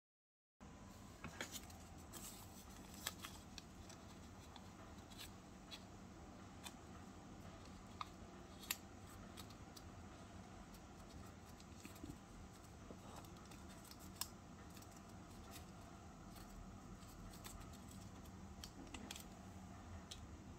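Paper strips being handled and bent into rings by hand: faint crinkling with scattered small sharp clicks and taps over a low steady hiss.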